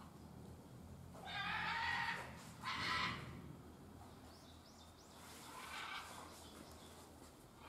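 Loud calls of another animal echoing through the building: a long call about a second in, a shorter one about three seconds in, and a fainter one near six seconds, over a low steady hum.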